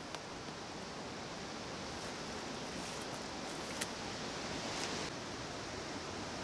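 Steady outdoor rustling noise, with one sharp click a little over halfway through.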